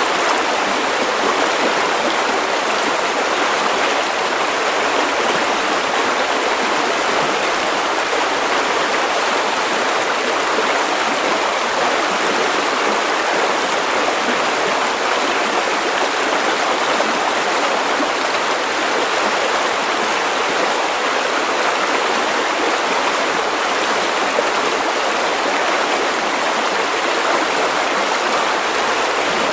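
River water running steadily over stones, a continuous even rushing.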